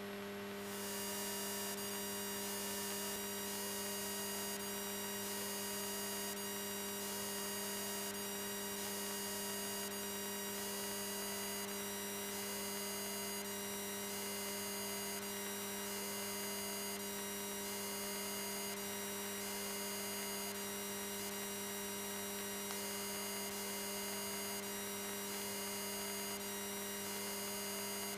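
Steady electrical hum of several fixed tones in the aircraft's radio/intercom audio feed between transmissions, with a faint short rising chirp repeating about once a second.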